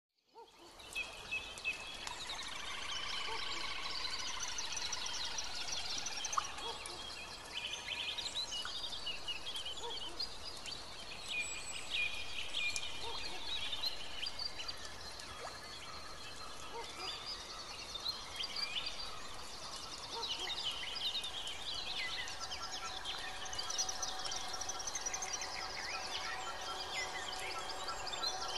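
Many birds chirping and singing together, a dense stream of short high chirps and trills over a steady background hiss.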